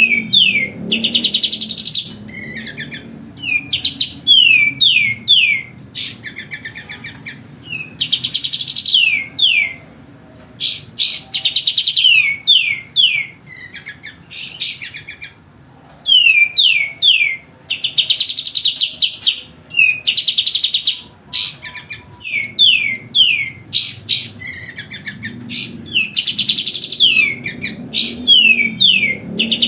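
Kapas tembak songbird singing loudly and continuously: phrases of quick, sharply falling whistled notes mixed with rapid chattering runs, a new phrase every second or two with short gaps between.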